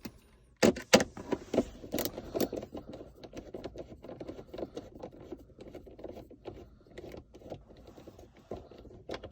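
Small Phillips screwdriver backing a screw out of plastic centre-console trim. A few sharp clicks come about a second in, then a long run of light, irregular metallic clicking and scraping as the screw is turned.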